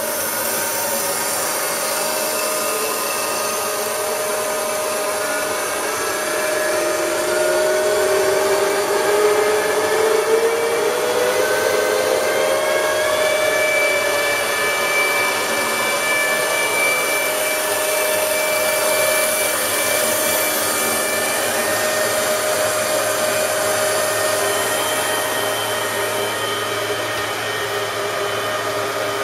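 Union BFT125 horizontal boring machine's table feed drive running, a steady mechanical whine with several gear tones as the table traverses under variable-speed feed. The whine rises in pitch from about six to thirteen seconds in as the feed speed is stepped up.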